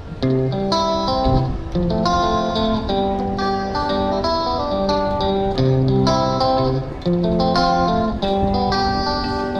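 Background music: a plucked acoustic guitar playing a melody of picked notes.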